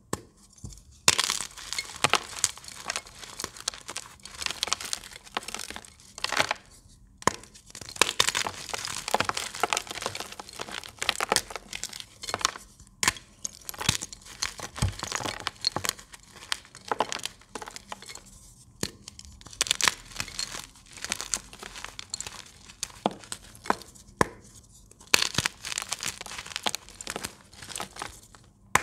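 Blocks of gym chalk (magnesium carbonate) snapped and crumbled by hand: dry, crunchy crackling with many sharp snaps, in bursts separated by short pauses, starting about a second in.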